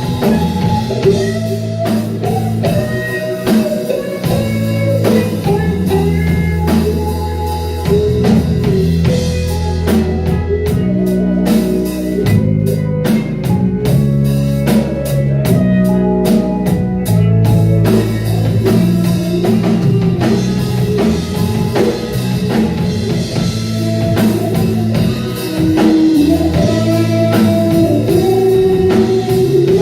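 Live rock band playing an instrumental passage: guitar melody over bass and a drum kit, with no singing.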